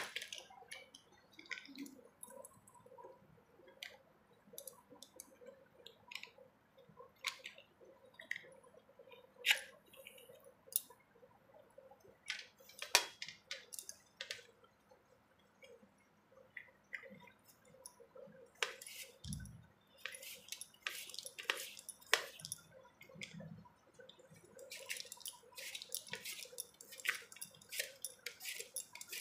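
Raw potato being sliced on a hand-held stainless steel slicer, pushed across the blade in a red plastic holder: short scraping strokes and light clicks, uneven at first and coming quickly near the end.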